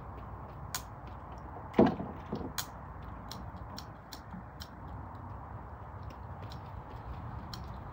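Steady low outdoor rumble with scattered light clicks and one louder knock about two seconds in.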